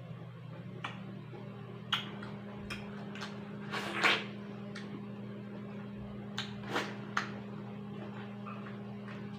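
Close-miked eating of a fresh watermelon slice: a series of crisp, juicy bites and chews, the loudest about four seconds in and a quick run of three more near the end, over a steady low hum.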